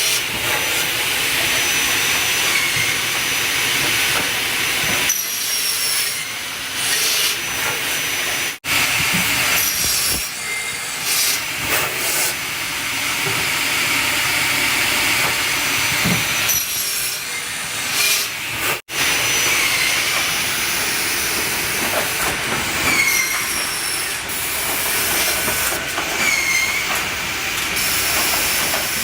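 KOCH woodworking drawer-side line (crosscut saw, NC boring machine and grooving/splitting saw) running in production: continuous loud machinery noise with a hiss of air. High whines from motors and blades run through it, with short swooping whines repeating in the second half. The sound breaks off abruptly twice, about a third and two-thirds of the way through.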